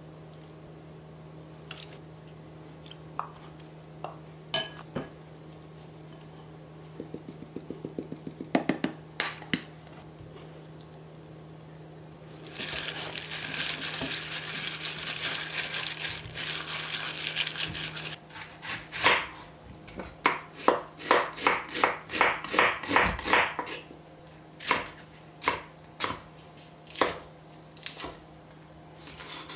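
Kitchen prep sounds. First, light clinks and taps of spoons adding seasonings to a glass bowl of sliced pork. Then a gloved hand mixes the marinade into the meat, with plastic glove crinkling and wet squishing for about five seconds. Last, a chef's knife cuts green onion on a wooden cutting board in sharp knocks, about one a second near the end.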